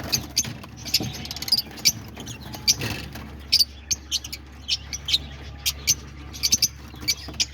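Aviary birds chirping: many short, sharp, high-pitched squeaks and chirps, a few a second, from the cockatiels and other small birds in the flight.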